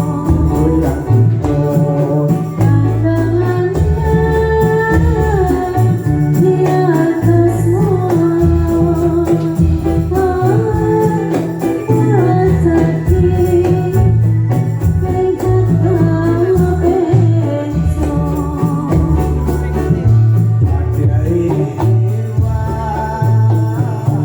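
Dolalak dance music: a singer's wavering melody over a steady repeating low drum-and-bass beat, with jingling tambourine-like percussion.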